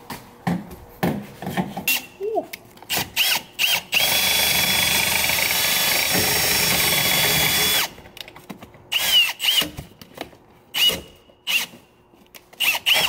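Cordless Milwaukee Fuel drill triggered in several short bursts, each spinning up and down, then run steadily for about four seconds from about four seconds in. It is drilling out a hole in the car's body to widen it.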